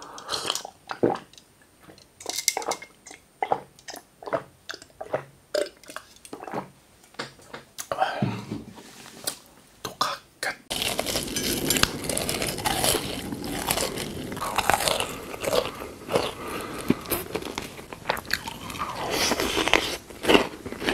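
Close-miked mouth sounds of eating and drinking: gulps and lip smacks, then from about eleven seconds in a dense, continuous run of crunchy biting and chewing.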